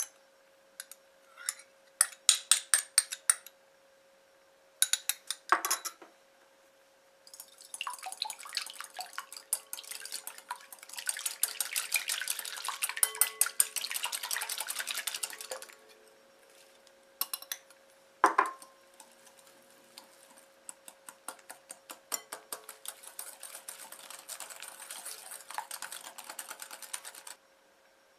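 Egg and salad oil being beaten in a glass mixing bowl: a utensil clicks rapidly against the glass in spells, with one ringing clink of the bowl about halfway through.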